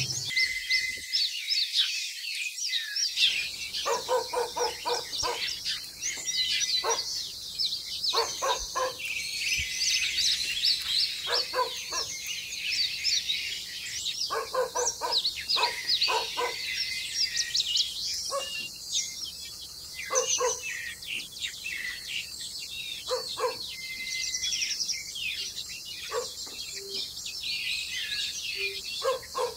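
Birds chirping and calling: a dense layer of high, quick chirps throughout, with a lower, fuller call repeated in short runs every few seconds.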